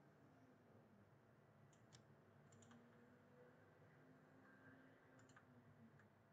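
Near silence with a few faint, short computer mouse clicks: a couple about two seconds in, a pair around two and a half seconds, and more near five and six seconds.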